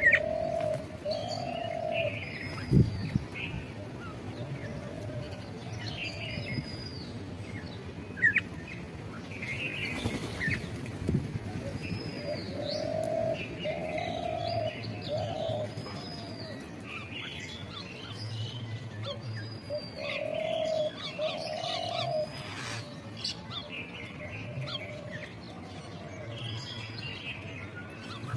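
Several birds calling: a low cooing call in short phrases of a few notes that recur every several seconds, over many higher chirps and arched whistles.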